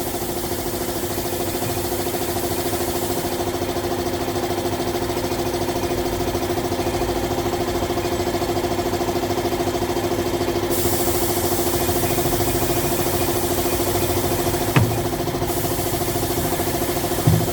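Motorcycle engine idling steadily at an even pitch, with a single sharp click near the end.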